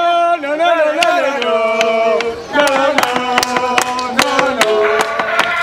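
A voice singing long held notes that step from pitch to pitch, with sharp clicks scattered through it.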